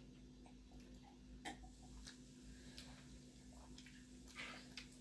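Faint mealtime sounds of people eating momos by hand: a few small scattered clicks and soft mouth noises, the longest a brief soft rustle-like sound near the end, over a low steady hum.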